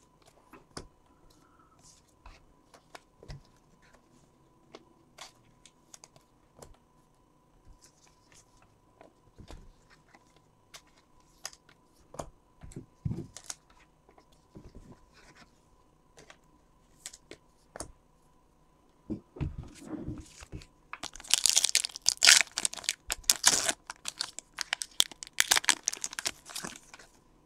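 Scattered light clicks and taps of cards being handled. Then, about 21 seconds in, a baseball card pack's foil wrapper is torn open and crinkled for several seconds, the loudest sound here.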